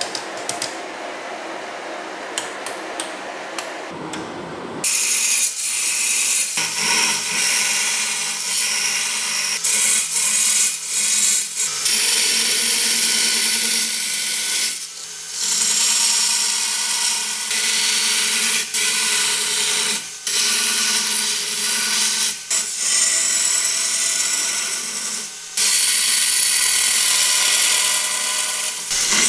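A few light clicks from a bench vise being worked, then, about five seconds in, a belt grinder grinding a forged steel sword blade on its belt. The grinding is steady and loud, with several brief dips as the blade is lifted from the belt.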